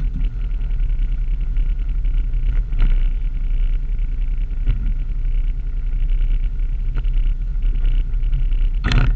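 A Can-Am off-road vehicle's engine idling with a steady, close low rumble. A single sharp knock comes near the end.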